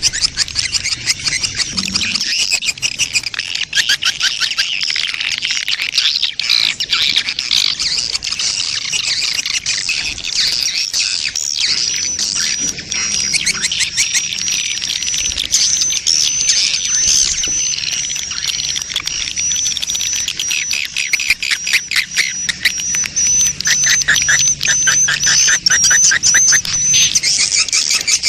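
Swiftlet lure call of a swiftlet colony in breeding mood: dense, rapid chirping and twittering of many swiftlets, used to attract swiftlets to a nesting house. A thin, high, wavering whistle joins about twelve seconds in and stops shortly before the end.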